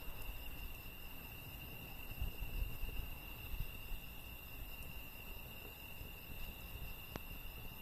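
Crickets chirring steadily in a continuous high-pitched drone, over a low rumble. One sharp snap, likely from the burning firewood, comes about seven seconds in.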